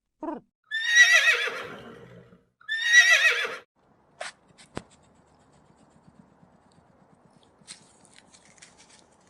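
Horse whinnying: a short call, then two loud quavering whinnies of about a second each. These are followed by a couple of sharp knocks and faint rustling.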